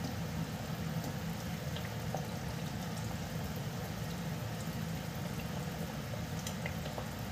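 Chili garlic sauce bubbling in hot oil in a stainless steel pot, stirred with a wooden spoon as the garlic browns. A steady simmering bubble with scattered small pops.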